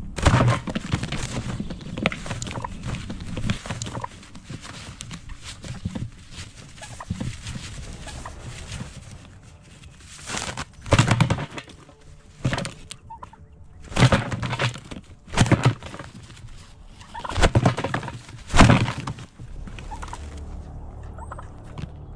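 Wild turkey tom gobbling repeatedly, about six loud gobbles in the second half.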